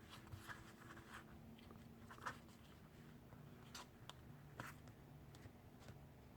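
Near silence, with a few faint ticks and rustles of a sheet of paper being folded and creased by hand.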